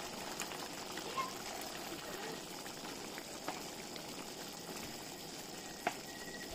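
Thick creamy sauce with calamari and potato bubbling as it simmers in a frying pan, stirred with a wooden spatula that gives a few light knocks against the pan.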